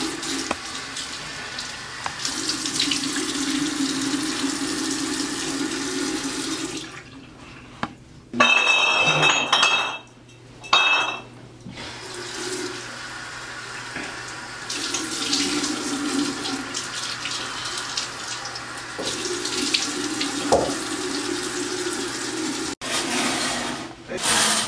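Water running steadily, like a tap into a sink. About a third of the way in it breaks off, and two louder surges with a high whistling tone follow before the steady flow resumes.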